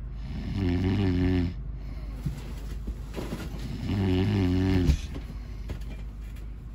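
A man snoring in his sleep: two long snores about three seconds apart, the first about half a second in and the second about four seconds in.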